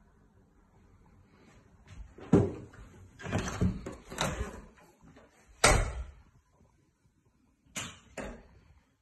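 A door being handled and shut. There is a sharp knock a couple of seconds in, then a stretch of rattling and knocking, then a hard bang a little past the middle. Two quick knocks follow near the end.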